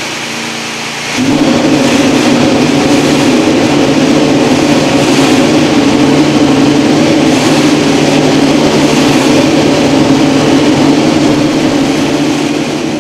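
Ferrari's 2016 Formula 1 power unit, a 1.6-litre turbocharged V6 hybrid, fired up on the test bench: after about a second of steady rushing noise it catches and runs loud and steady at one unchanging pitch, easing off slightly near the end.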